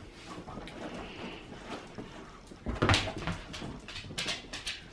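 Pit bulls moving about on a fabric couch and blanket while one chews a rubber ball toy: rustling, a heavy thump about three seconds in, and a quick run of sharp clicks near the end.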